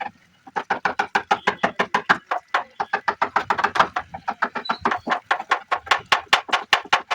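A hand tool striking wood in a quick, steady rhythm, about six sharp knocks a second, with a brief pause a little after two seconds in.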